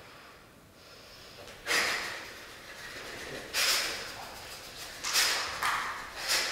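Four loud, sharp breaths, each bursting in suddenly and fading over about a second, roughly every one and a half seconds.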